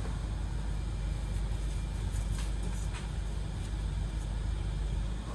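Mercedes A-Class W176 engine idling steadily with a low hum, with a couple of faint clicks about two and three seconds in.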